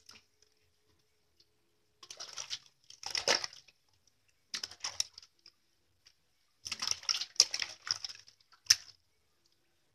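Bath water splashing in a large metal basin in several short bursts, from a hand scooping and pouring water over a baby, with one sharper splash near the end.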